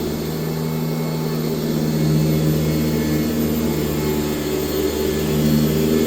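1996 Sanitaire S663 Type A upright vacuum cleaner running steadily while vacuuming, a constant motor hum that swells and eases slightly in level.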